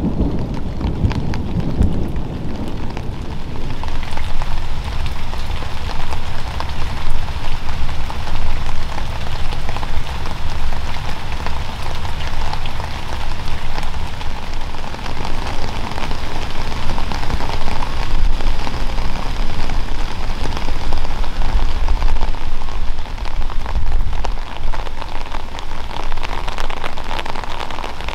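Rain falling steadily, a dense even patter of drops. A low rumble of thunder dies away in the first two seconds.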